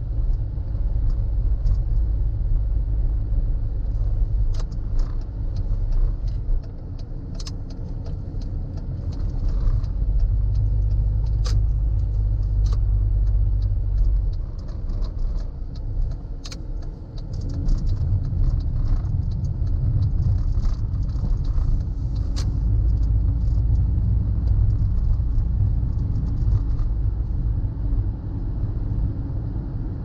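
A car driving, heard from inside the cabin: a steady low road and engine rumble that dips twice, with scattered light clicks and rattles.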